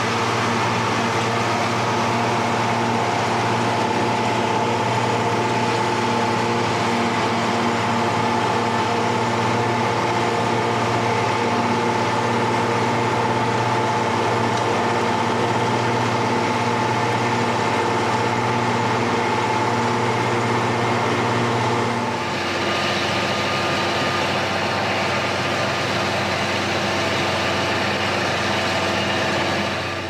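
John Deere tractor engine running steadily under load while pulling a grass mower, with a steady whine over the engine. About three-quarters of the way through the sound changes abruptly to a brighter, more hissing engine sound.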